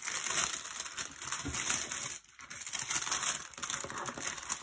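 Clear plastic protective film on a diamond painting canvas crinkling as it is smoothed and straightened by hand. The crinkling stops briefly about two seconds in.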